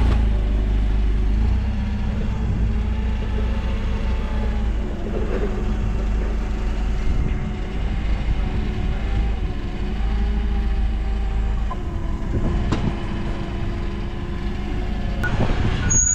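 Toyota forklift's engine running under load, its pitch drifting up and down as it edges forward and works the mast with a gutter machine on the forks. A couple of sharp knocks come in the second half.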